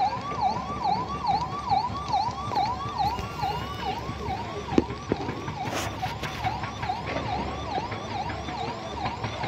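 Fire engine siren in a fast yelp, its pitch sweeping up and down about two to three times a second without a break. A short sharp click is heard about five seconds in.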